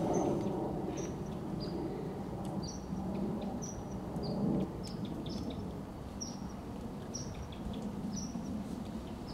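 A small bird calling repeatedly: short, high chirps that slide downward, roughly one to two a second, over steady outdoor background noise.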